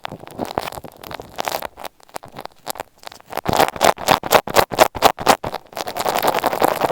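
Close-miked ASMR scratching and rubbing right on an earphone microphone, turning about halfway through into a quick run of taps, roughly five a second, then back to scratchy rustling near the end.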